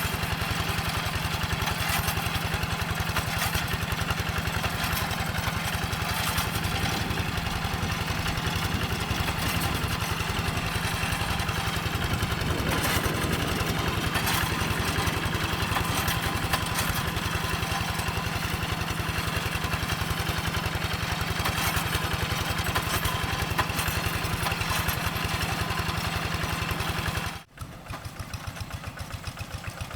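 Single-cylinder diesel engine of a two-wheel hand tractor running steadily while plowing a wet rice paddy, its firing pulses coming fast and even. Near the end the sound drops out for an instant and comes back quieter.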